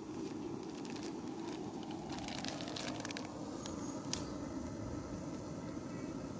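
Light crinkling and small clicks from a plastic spice packet being handled as pinches are taken from it, with one sharper click about four seconds in, over a steady background hiss.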